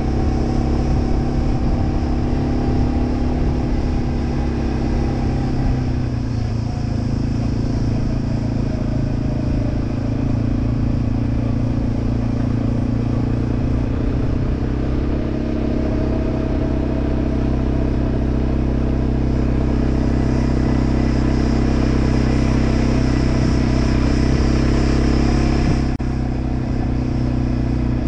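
Quad bike engine running steadily. Its pitch drops about six seconds in and climbs again around fifteen seconds, with a short dip in level near the end.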